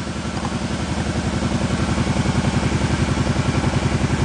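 An engine idling steadily with a rapid, even pulse, growing slightly louder in the first second.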